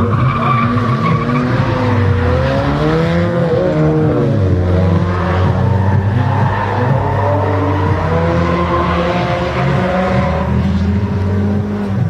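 Drift cars sliding through a corner: engines revving up and down in pitch under a steady screech of tyres skidding sideways on tarmac.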